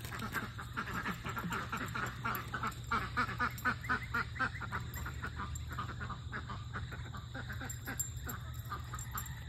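A flock of ducks quacking in rapid, overlapping short calls, set off by a puppy chasing them; the calling is densest around the middle.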